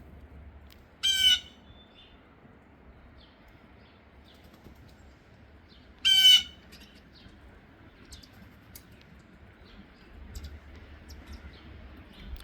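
A bird calling twice: a short, loud, harsh call about a second in, repeated about six seconds in.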